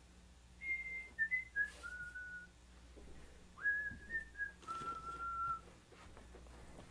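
A person whistling a short tune: two phrases of clear held notes stepping up and down in pitch, with a pause between them near the middle.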